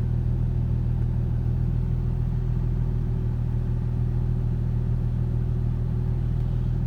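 A steady low hum that does not change in pitch or loudness.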